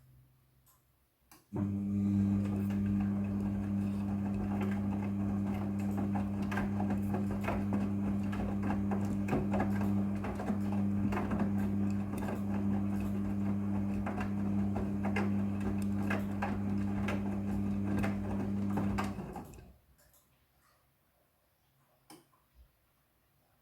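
Midea front-loading washing machine: a steady electric hum with water rushing and crackling through it, typical of the drain pump or water inlet valve running. It cuts in abruptly near the start and stops sharply about eighteen seconds later.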